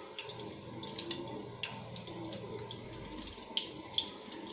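Roti cutlets shallow-frying in oil in a covered pan on a low flame: a steady quiet sizzle with scattered small pops of oil.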